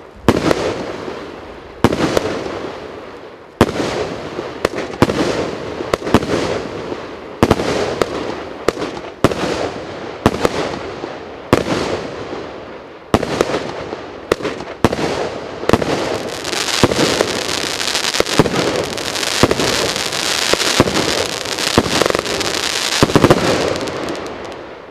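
Consumer fireworks cake ('Some Like it Hot') firing a long sequence of shots. Sharp bangs of bursting stars come about every second and a half at first, then about two a second. For the last several seconds there is a dense, continuous crackle, which fades out just before the end.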